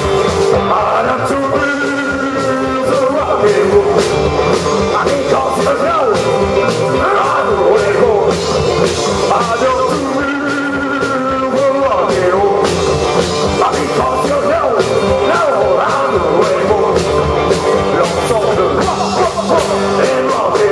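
Live rock and roll band playing: two electric guitars, an electric bass and a drum kit, with a steady driving beat.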